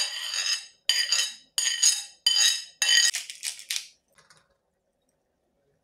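Metal spoon tapping and scraping on a ceramic plate: about six ringing clinks, a little over half a second apart, the last few smaller and quicker, all within the first four seconds.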